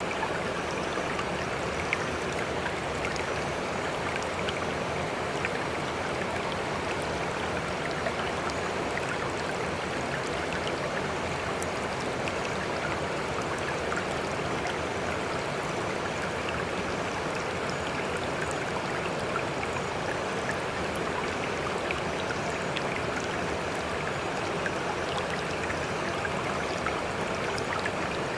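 Steady, unbroken rush of flowing floodwater, with faint scattered ticks and splashes.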